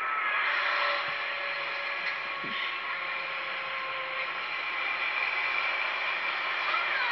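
Steady running noise of a moving road vehicle heard from inside it, an even rush with a few faint steady whining tones.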